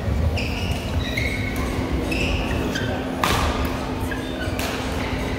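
Badminton rally: a few sharp racket-on-shuttlecock hits, the loudest about three seconds in, between short high squeaks of shoes on the court mat, with the echo of a large hall.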